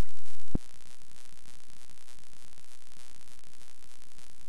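Commodore 64 SID chip music cuts off with a single click about half a second in, leaving only a steady low hiss and buzz from the computer's audio output while the demo switches parts.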